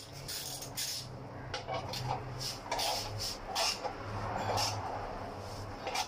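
Short, irregular clicks and scrapes of a hand tool working on a part under a van, over a low steady hum.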